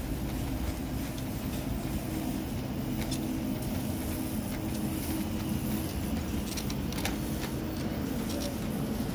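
Shopping cart wheels rolling over a tiled store floor: a steady low rumble with faint rattles, over a steady hum.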